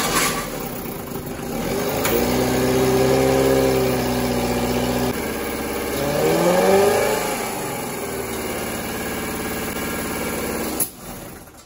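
Johnson Sea-Horse HD25 outboard's small two-cylinder two-stroke engine running on a stand out of water. It runs steadily, drops in pitch about five seconds in, picks up again as it is revved, and stops near the end.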